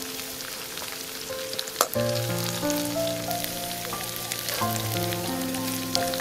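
Sliced lemongrass, shallots and lime leaves sizzling as they fry in a pan, stirred with a metal spatula that gives a few sharp clicks and scrapes. Background music with held notes comes in about two seconds in.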